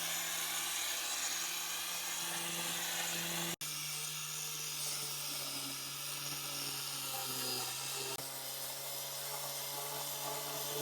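A small electric motor in a power tool running steadily, a whining hum over a broad hiss. The pitch sits slightly lower after about three and a half seconds.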